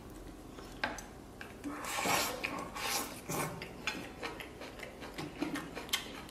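Chopsticks clicking and scraping against a ceramic rice bowl as food is shoveled into the mouth, with chewing. A sharp click comes about a second in, and scratchy scraping about two and three seconds in.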